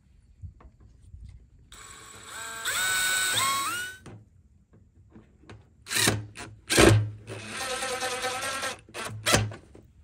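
Power drill driving self-tapping metal screws, in two runs. In the first the motor's pitch climbs in steps as it speeds up. The second runs at a steady speed, with a few sharp knocks.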